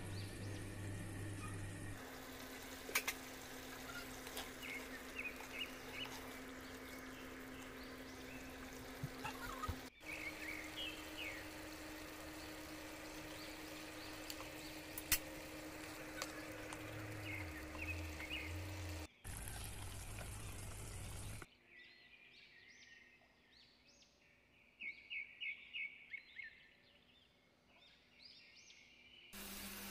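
Faint background noise with a steady low hum and short bird-like chirps now and then, its character changing abruptly at several edits.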